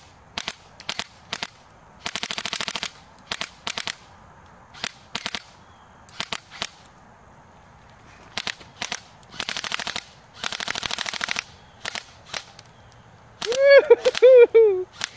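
Fully automatic airsoft electric gun (AEG) firing: scattered single shots and two rapid full-auto bursts, the longer one about two seconds, at a netbook. A loud shout near the end.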